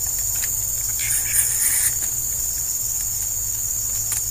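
Steady shrill chorus of insects, a constant high-pitched drone, with a few faint clicks and a brief louder rasp about a second in.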